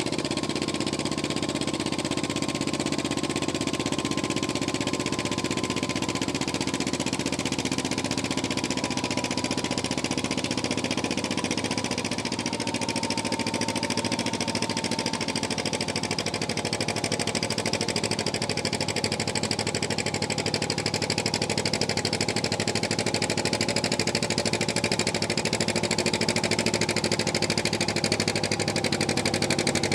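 Farm tractor engine running steadily at an even, unrevved speed, with a faint high whine that slowly drifts lower. The engine noise grows a little louder in the last third.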